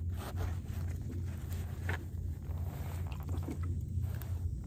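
Scattered clicks, knocks and rustles from handling a freshly landed speckled sea trout held up against the head-mounted camera, over a steady low hum.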